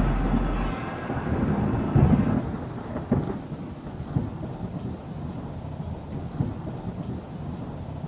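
Thunder rumbling over steady rain, with a couple of louder rolls in the first few seconds, then settling into an even rain patter.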